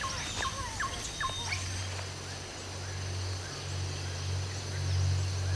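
Tropical forest ambience: a handful of short downward-sliding bird chirps in the first second and a half over a faint steady high insect drone. A low steady music drone comes in about one and a half seconds in and slowly grows.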